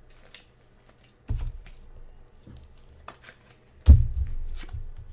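Trading cards being handled at a table: small clicks and rustles, with two dull thumps, one about a second in and a louder one near four seconds in.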